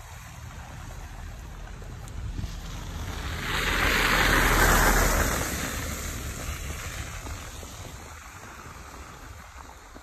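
A vehicle driving past: a swell of tyre hiss and low rumble that builds to its loudest a few seconds in, then slowly fades away.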